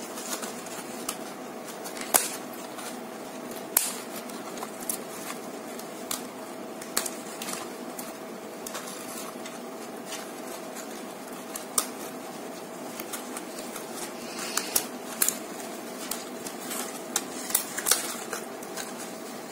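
Scissors snipping through jackfruit-leaf cups: scattered, irregular sharp clicks and snips over a steady background hum.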